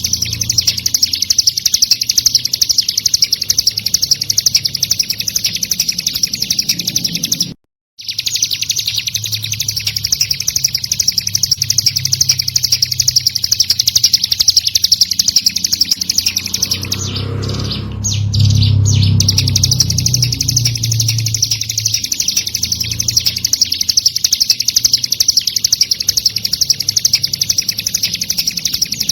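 Ciblek gunung, a prinia, singing a fast, unbroken run of high chirps over a low hum, with a short silent break about eight seconds in.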